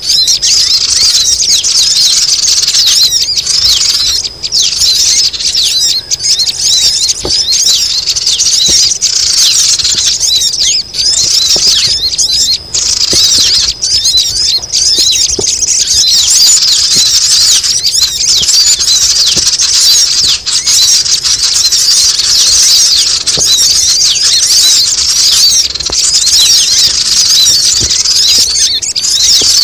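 Dense, continuous chorus of many small sogon birds chirping high and fast, the calls overlapping without a break: a noisy sogon lure (pikat) call.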